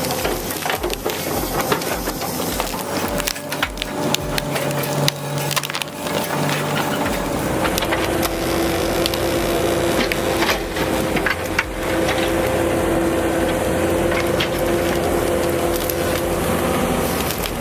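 Excavator's screw-shaft stump splitter boring into a large tree stump, the wood cracking and splintering repeatedly over the steady drone of the excavator's engine and hydraulics.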